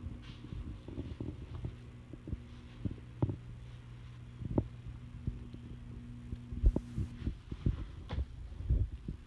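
Cat grappling and kicking a fabric toy on a wooden floor: scattered soft thumps and scuffs over a steady low hum.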